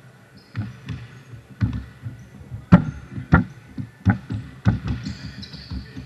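Basketball bouncing on an indoor court: a run of irregular thumps, the loudest a little before the middle of the stretch. Short high squeaks come and go, more of them near the end.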